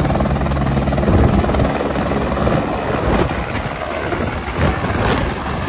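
Single-engine AS350 Écureuil-type light helicopter lifting off: turbine whine and main rotor beating steadily at full power as it climbs off the ground.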